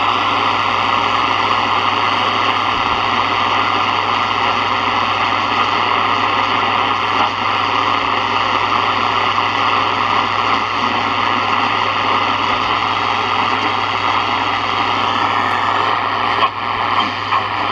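Sony ICF-7601 portable shortwave radio hissing with steady static from its speaker while tuned between stations, with a steady hum and whistle under the noise. A few brief clicks and crackles come near the end.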